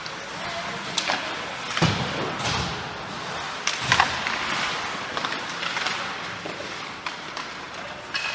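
Ice hockey play: a string of sharp knocks and thuds from sticks, puck and boards, the loudest about two and four seconds in, over a steady hiss of rink noise.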